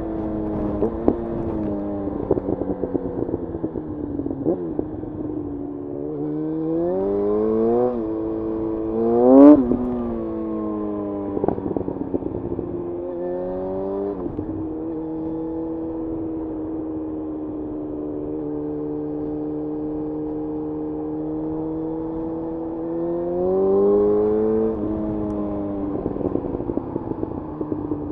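Yamaha FZ1's inline-four engine pulling up through the gears. The revs climb in steps with short drops at the shifts, peak sharply about nine seconds in and then fall away. The engine holds a steady cruise through the middle, rises once more and eases off near the end.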